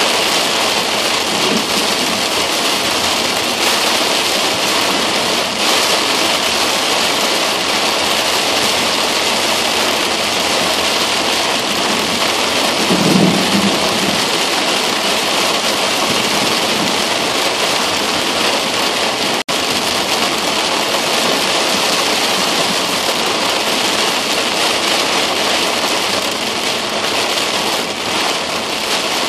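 Torrential rain pelting a car windshield, a loud, steady hiss, heard from inside the car. Thunder rumbles briefly, low, about halfway through, and the sound cuts out for an instant a little later.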